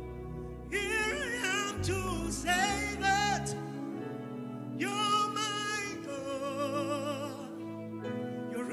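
A worship song sung live by a lead singer, phrase after phrase with vibrato, over sustained keyboard chords. The low bass drops out about three and a half seconds in.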